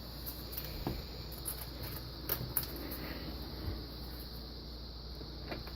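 Steady low background hum and hiss with a few faint, short clicks and taps, as of parts being handled.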